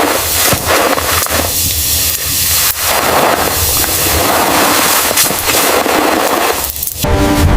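Fire crackling and popping loudly, a dense run of sharp pops that stops suddenly near the end.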